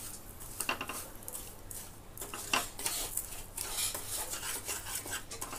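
A spoon scrapes and stirs dry, grainy sugar around a non-stick pan in irregular strokes and clicks: the sugar is being heated to melt into caramel.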